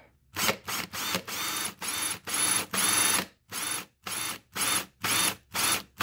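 Cordless drill with a twist bit run in about a dozen short trigger bursts, the motor spinning up each time, as the bit grinds into the steel pin of a bicycle chain link. The drilling takes the peened lip off the pin head so the pin can be pushed out.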